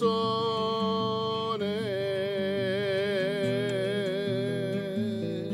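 A man singing one long held note with vibrato over plucked acoustic guitar; the note steps down in pitch about a second and a half in and its vibrato widens.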